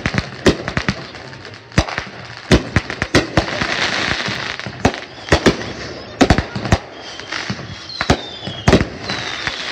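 Aerial fireworks going off: many sharp bangs at irregular intervals, some in quick clusters, over a steady hiss of crackling stars.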